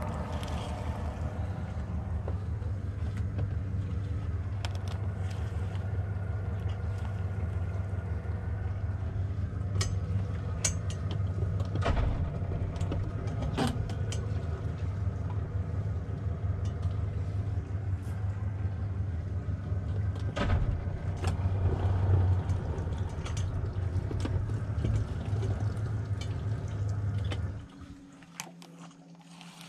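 Boat's outboard motor running at idle with a steady low hum, with a few sharp knocks and clicks on the hull and gear along the way. The engine shuts off a little before the end, leaving faint water trickling.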